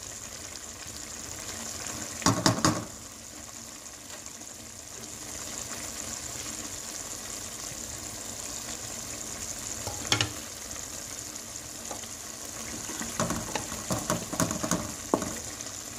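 Beef keema frying in oil in an aluminium pot, giving a steady sizzling hiss. Short clattering knocks of utensils against the pan come about two seconds in, once near ten seconds, and in a quick run near the end.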